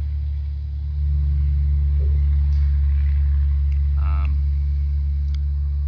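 A loud, steady low mechanical drone, with a brief vocal sound about four seconds in.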